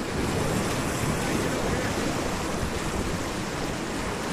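Whitewater of a river rapid rushing and churning close around a packraft, a steady, even wash of water noise.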